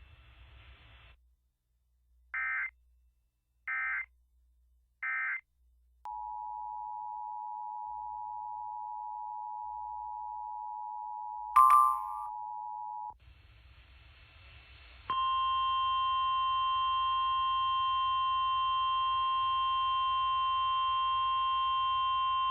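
Emergency Alert System signals: three short screeching digital header bursts, then the two-tone attention signal held for about seven seconds, with a brief sharp beep cutting in near its end. After a moment of static hiss, a steady single-pitch weather radio alert tone starts suddenly with hiss behind it.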